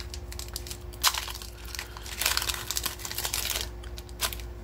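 Foil trading-card pack being torn open and crinkled by hand: irregular crackling of the foil wrapper, a short burst about a second in and the longest, densest stretch in the middle.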